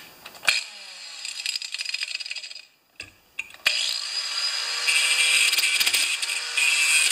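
Angle grinder cutting into a small metal part clamped in a vise. A first short run, then a break of about a second, then steady high-pitched grinding from about three and a half seconds in.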